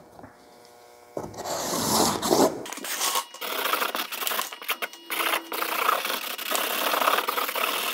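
Marker pen scratching and rubbing across brown pressed paper as lines are drawn, in short, uneven strokes that start about a second in and keep going.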